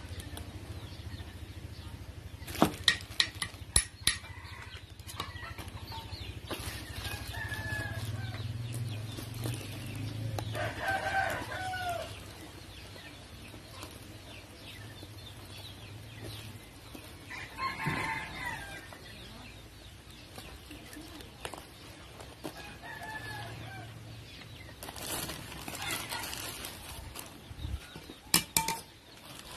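A rooster crowing and chickens clucking several times. Two clusters of sharp knocks come from a wooden pestle striking in a clay mortar, one about three seconds in and one near the end.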